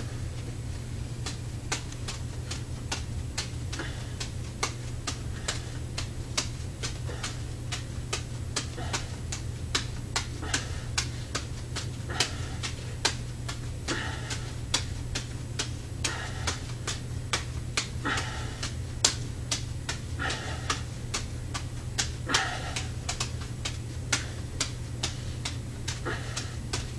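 Two juggling balls being caught and thrown in one hand: a steady run of sharp slaps, about three a second, over a low steady hum.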